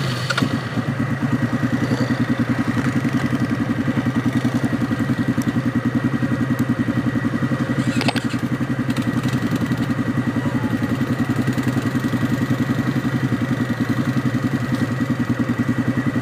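A vehicle engine running steadily with an even, rapid throb, picking up in loudness right at the start, with a thin steady whine above it.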